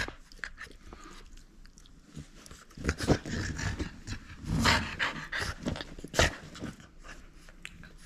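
French bulldog chewing and gripping a red rubber ring toy, with short bursts of breathy snorts and grunts. The loudest come about three, four and a half, and six seconds in.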